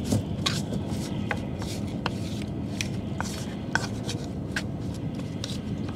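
Kitchen work on fish with a knife and utensils: irregular light knocks and clicks, about three a second, over a steady low hum.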